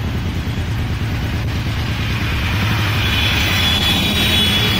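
Road traffic passing close by: the steady low rumble of a small goods truck's engine and a motorcycle going past. A thin, high-pitched tone joins about three seconds in.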